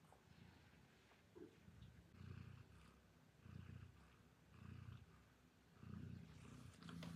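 Domestic cat purring faintly, the low rumble swelling and fading with each breath about once a second.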